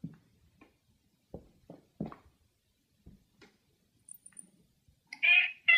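A sleeping long-haired cat lets out two short, loud cries near the end, after a few faint scattered taps; the owner takes the outburst for the cat crying out in a dream.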